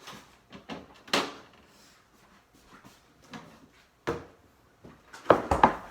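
Kitchen items being handled on a counter: a few separate knocks, then a quick run of louder clatter near the end.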